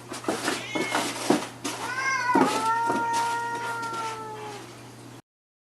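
Domestic cat making one long, drawn-out yowl that starts a little after two seconds in and trails off about two seconds later, after a few short, scattered sounds. The sound cuts off abruptly near the end.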